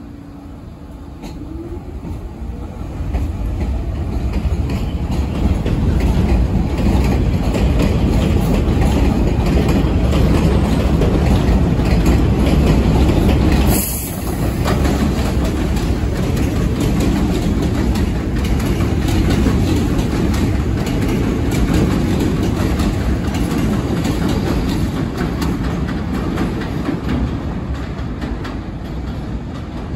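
R46 subway train running on an elevated steel structure: a loud rumble of wheels on rails that builds over the first few seconds and then holds. The sound breaks off abruptly just before 14 seconds in, and a second train's rumble follows, easing slightly near the end.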